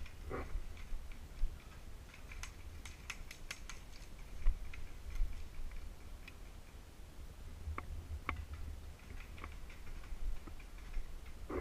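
Scattered sharp clicks and snaps, with a quick run of about eight near three seconds in and a few more around eight seconds, over a steady low rumble.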